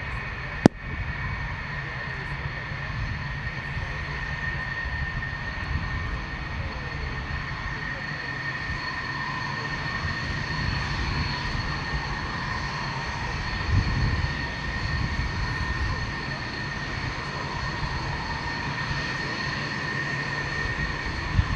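Dassault Mirage 2000-5's jet engine running at taxi power: a steady high whine over a low rumble. A sharp click comes about a second in.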